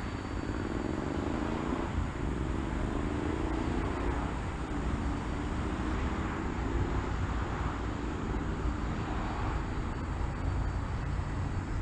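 Electric motor and propeller of a ParkZone T-28 RC model airplane in flight, a faint whine that slides up and down in pitch as the plane passes, heard over a steady low rumble.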